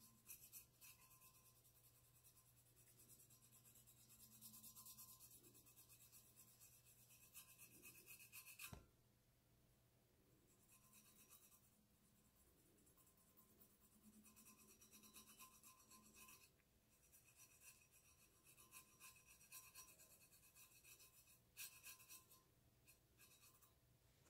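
Faint, scratchy rubbing of fingertips working metallic paste paint over the textured painted surface of a stainless steel tumbler, in stretches with short pauses. One sharp click about nine seconds in.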